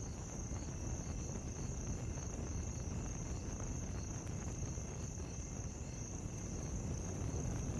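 Faint, steady chirping of crickets: a continuous high trill with soft, evenly repeating pulses.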